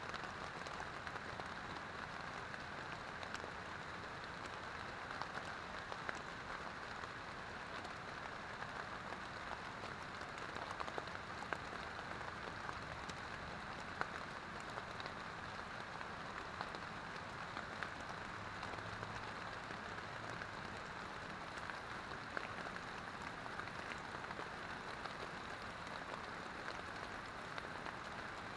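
Steady rain falling, with scattered single drops landing as sharp ticks.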